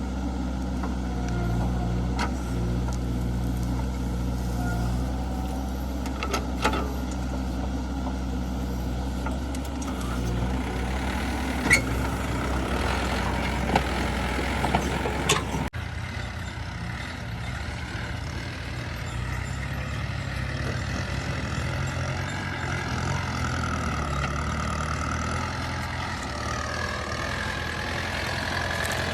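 Heavy diesel engines of a backhoe loader and tractors running steadily, with a few sharp clanks in the first half. The engine sound changes abruptly about halfway through.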